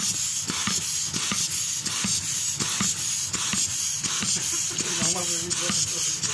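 Air hissing into a rubber balloon as it is inflated through a straw, in short regular pulses about twice a second.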